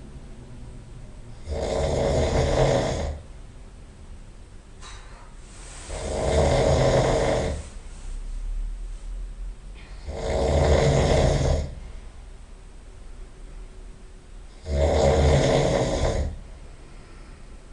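A person snoring loudly in a steady rhythm: four long snores, about one every four seconds, each lasting a second and a half to two seconds, with a fainter breath between the second and third.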